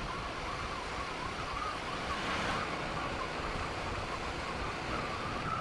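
Motorcycle being ridden, its engine running under wind rush on the microphone, with a steady wavering whine over the noise.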